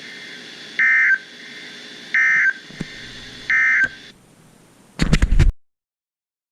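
Emergency Alert System end-of-message data bursts on a weather radio broadcast: three short, loud warbling digital tone bursts about a second apart over a faint hiss. They signal the end of the warning message. A brief crackle comes about five seconds in, and then the audio cuts off.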